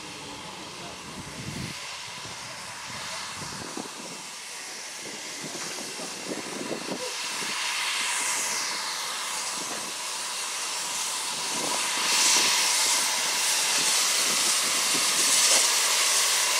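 BR Standard Class 2 2-6-0 steam locomotive No. 78019 approaching with a goods train: steam hiss and exhaust beats that grow steadily louder as it nears.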